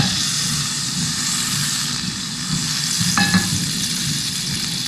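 Butter and oil sizzling in a hot stainless steel pan, a steady frying hiss as the fat heats before the chicken goes in. There is a knock at the very start and a short metallic click about three seconds in.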